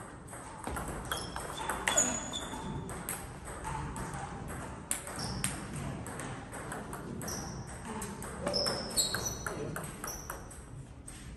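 Table tennis rally: the celluloid ball clicking sharply off the bats and the table, again and again, with short high squeaks of sneakers on the court floor.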